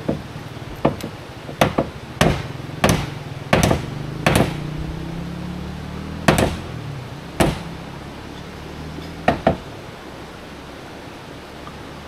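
Hammer blows, about ten sharp strikes at an uneven pace with a longer gap midway, as construction workers nail up wooden column formwork.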